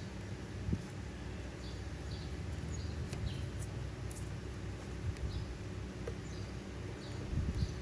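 Birds chirping in short, repeated calls over a steady low rumble, with a few soft knocks.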